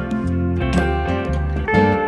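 Background music with plucked guitar notes.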